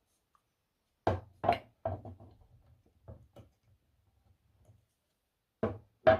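Sharp knocks and clicks of hard objects being handled: three loud ones in quick succession about a second in, trailing into softer clicks, then a quick pair near the end.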